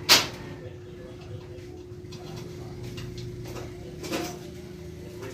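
Hand work on a steel window grille and its frame: a sharp knock right at the start and a softer one about four seconds in, over a steady low hum.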